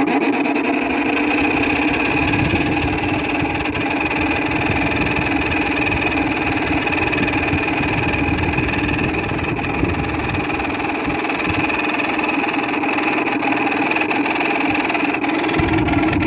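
2000 Whirlpool window air conditioner running loud and steady, its worn fan motor bearings making a harsh, constant noise. The sound gets suddenly louder at the very start, then holds.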